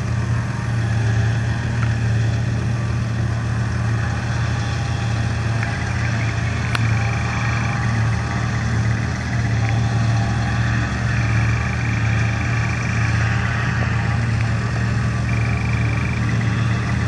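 John Deere 7750i self-propelled forage harvester running under load as it chops grass for silage, together with the tractor pulling the trailer alongside: a steady deep engine drone with higher tones coming and going.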